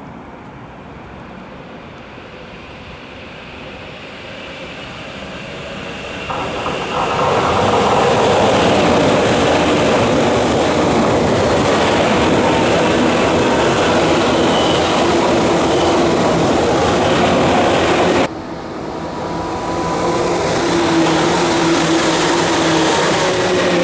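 Tokyu 8500 series electric train running with loud traction-motor and rail noise. The noise builds over a few seconds to a steady loud level, breaks off suddenly, then resumes with steady motor tones.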